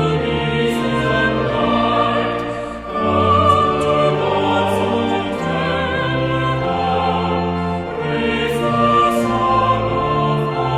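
Choir singing a hymn with instrumental accompaniment, in slow held chords that change every second or so.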